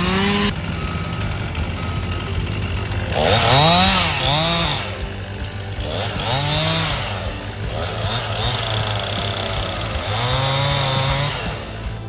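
Chainsaw engine revving up and down in repeated throttle swells, its pitch rising and falling several times.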